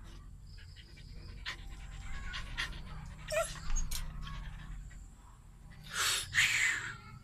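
Dog panting, with scattered sharp clicks and two loud breathy bursts about six seconds in.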